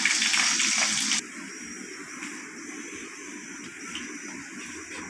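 Water poured from a jug into a metal wok, splashing into the pan and stopping abruptly about a second in; a much quieter steady hiss follows.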